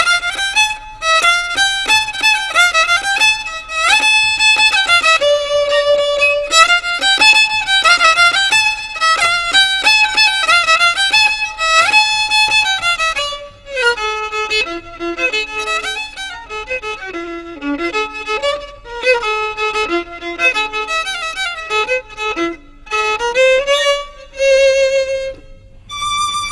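Violin playing a lively melody, high at first and dropping to a lower register about halfway through, ending on a long held note near the end.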